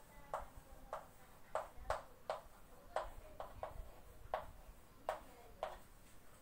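Chalk tapping and clicking against a chalkboard as words are written: about a dozen sharp, irregular taps, each with a brief ring.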